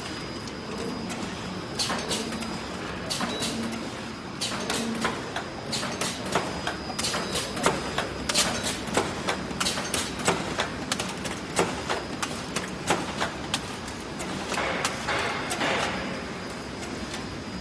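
Automatic cartoning machine for blister packs running, a steady mechanical hum with sharp clacks about twice a second as its mechanism cycles, loudest in the middle stretch.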